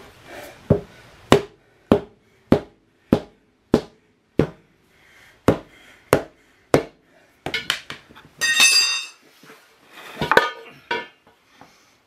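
A mallet beating the rear tire off a motorcycle's aluminium rim by hand: about ten sharp, evenly paced blows, then a metal clang that rings briefly, and a few more knocks near the end.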